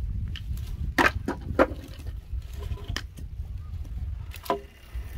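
Wood knocking on wood: four or five sharp knocks, a second or so apart, as split lengths of firewood are lifted and stood against a pile of poles, over a steady low rumble.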